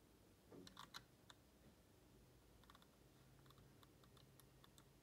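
Faint clicks and taps from working a MacBook Pro's trackpad against near silence: a small cluster about half a second to a second and a half in, then lighter scattered ticks.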